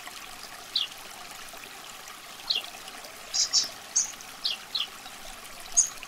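Water trickling steadily, with a scattering of about eight short high chirps over it, several of them falling quickly in pitch.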